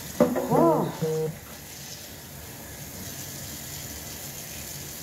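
A short wordless voice sound in the first second or so, its pitch rising then falling. After it comes a steady hiss of water running from a kitchen tap into the sink.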